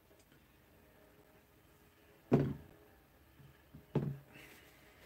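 Two short dull knocks about a second and a half apart, with a fainter tap just before the second, as small items are handled and set down on a desk.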